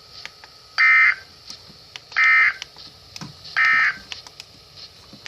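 Emergency Alert System end-of-message signal: three short, identical bursts of warbling digital data tones, about a second and a half apart, marking the close of the alert message.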